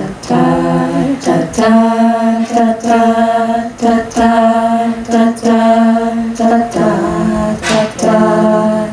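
An a cappella vocal group singing sustained chords in close harmony, with no instruments and no clearly sung words.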